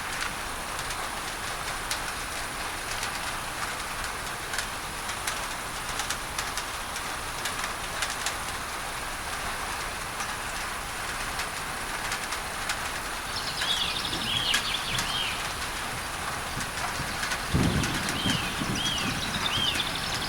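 Rain on a tin roof over a steady hiss of added pink noise, with scattered drop clicks. A bird gives two runs of quick repeated chirps in the second half, and a low rumble of thunder comes in about three-quarters of the way through.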